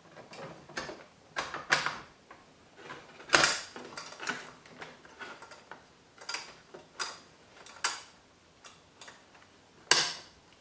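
Hard drive cage being slid back into an HP TouchSmart 600 all-in-one PC: a string of irregular clicks and knocks of the cage against the chassis, the sharpest about three seconds in and again near the end.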